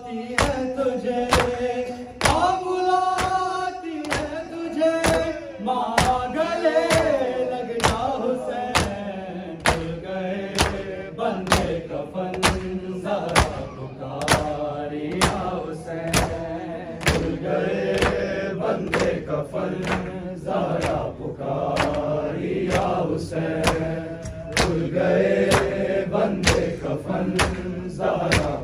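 A group of men doing matam, striking their bare chests with open palms in unison: a steady beat of sharp slaps, about three every two seconds, under many male voices chanting a noha.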